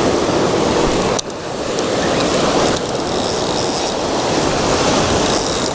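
Fishing reel winding hard against a hooked fish, a dense fast mechanical clicking of the reel, with a brief break about a second in.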